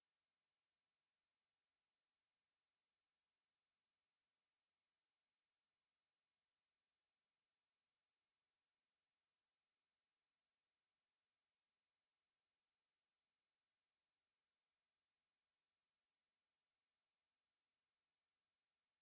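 A pure 6613 Hz sine-wave test tone, one steady high-pitched whistle held at an even level without a break.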